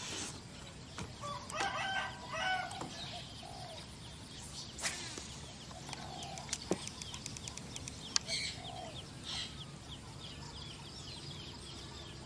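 A rooster crows once, about a second and a half in, over small birds chirping. A few sharp clicks sound around the middle.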